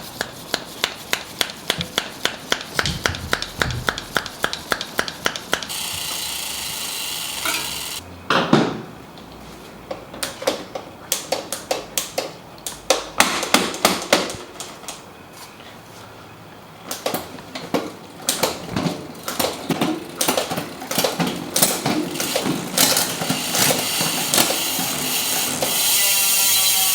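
Bicycle workshop work: runs of rapid, even ratchet-like clicking, about five a second at first, mixed with irregular clicks and knocks of tools on bike parts, with a steady hiss for a couple of seconds early on.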